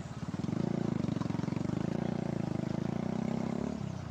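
An engine running steadily with a fast, even putter. It grows a little louder about half a second in and eases off near the end.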